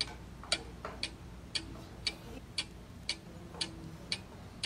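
Clock ticking steadily, about two ticks a second, like a countdown timer.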